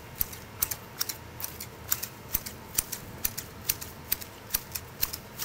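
Garden hand shears snipping rapidly at a leafy shrub: a steady run of sharp clicks, about two a second, with fainter clicks between.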